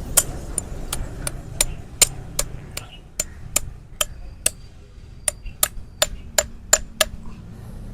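Sharp, evenly paced taps from hoof-trimming tools working on a donkey's hoof, about two to three strikes a second, with a brief pause a little past halfway.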